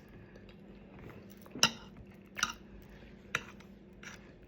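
Eating utensil clinking against a plate or dish four times, a second or less apart.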